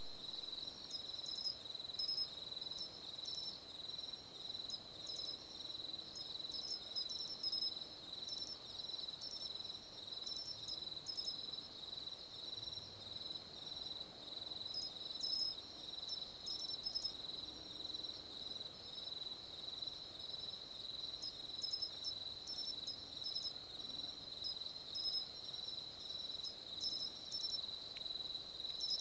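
Matsumushi pine cricket (Xenogryllus marmoratus, nominate subspecies) singing: clear, sharp high chirps repeated about once a second, over a steady high-pitched trill.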